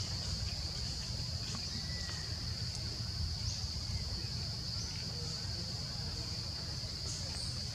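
Forest insects in a steady high-pitched drone, over a low rumble, with a few faint short chirps.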